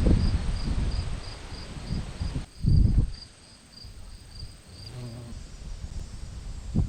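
An insect chirping in a steady rhythm, about three high chirps a second, until a little over five seconds in. Gusts of wind buffet the microphone underneath and are the loudest part.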